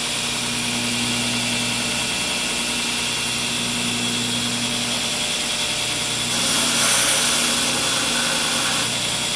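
Forge running with a steady droning hum. About six seconds in, a hiss rises for a couple of seconds, typical of hot knife steel being quenched in water.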